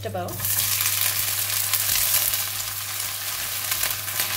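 Kailan stems tipped into hot oil in a wok, setting off a sudden sizzle about half a second in that carries on steadily as they are stirred with a spatula.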